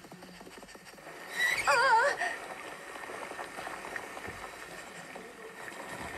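A cartoon sheep bleats once about a second and a half in, a wavering, quavering call, over a steady background hiss. It is heard through a TV speaker.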